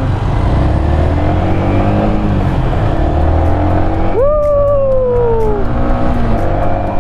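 Yamaha MT-15's single-cylinder engine running under way, its pitch climbing slowly as it pulls, then a sharp rev rise about four seconds in that falls away gradually as the throttle is eased off.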